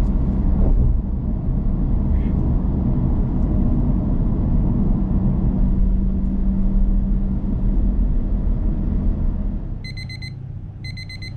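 Car cabin road noise while driving at speed: a steady low rumble with a hum. About ten seconds in it drops away and two short electronic beeps sound.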